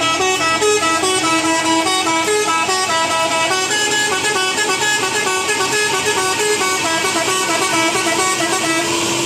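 Bus telolet horn, an electric multi-trumpet musical horn, playing a quick tune of short stepped notes, with a held lower note under the first few seconds.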